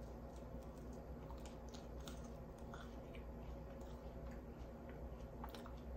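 Faint chewing of a bite of toast, with scattered soft crunches and mouth clicks.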